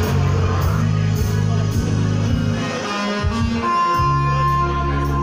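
Loud music with guitar over a steady deep bass line; the bass drops out for about a second near the middle and comes back, with a held high note from then on.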